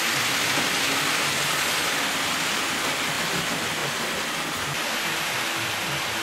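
Model freight train rolling along the layout's track: a steady rushing rattle of small wheels on metal rails, with a faint motor hum underneath.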